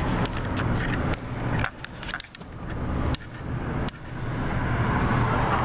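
Road and engine noise of a moving car heard from inside the cabin, with a few light clicks and knocks. The noise drops away abruptly a couple of times in the middle, then builds back up.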